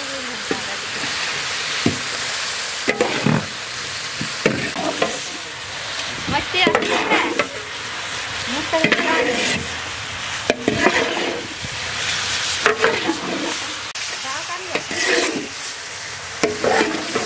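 Pork pieces sizzling as they fry in a large metal kadai, with a flat metal spatula scraping the pan and turning the meat every second or two.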